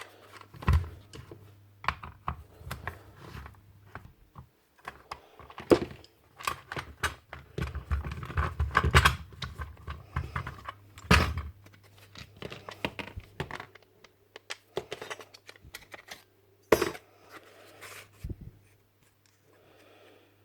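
Irregular clicks, clinks and knocks of hand tools and small metal parts as a Paslode IM350+ nail gun is taken apart, with clusters of handling about a third of the way in and single sharper knocks later.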